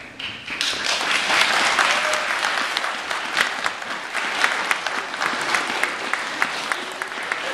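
An audience applauding in a large, echoing stone church. The clapping swells within the first second, then slowly thins, with single sharp claps standing out near the end.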